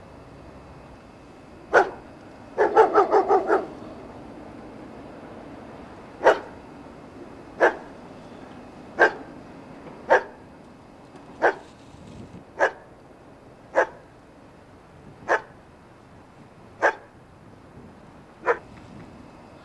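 A dog barking: one bark, then a quick burst of about six barks near the start, followed by single barks every second or so.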